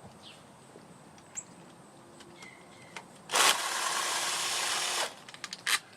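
Power tool spinning out a bolt from the scooter's engine casing: a few small clicks, then about three seconds in one steady two-second run that stops abruptly.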